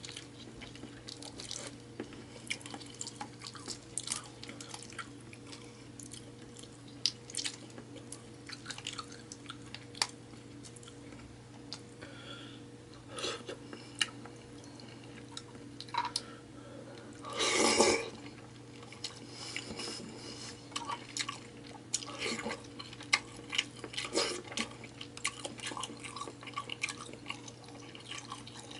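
Close-up eating sounds of a person working through a seafood boil: wet chewing, lip smacks and sucking sounds with many short clicks. There is one longer, louder burst a little past the middle, over a steady low hum.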